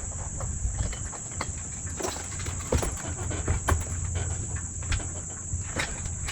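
Steady high-pitched insect chirring, with scattered light clicks and knocks and a low rumble underneath.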